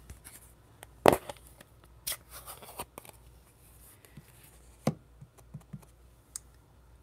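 Plastic clicks and taps from handling a Stampin' Up ink pad and a clear acrylic stamp block. A sharp click about a second in as the ink pad's lid is opened, a knock near five seconds, then a few light taps as the stamp is pressed onto the pad to ink it.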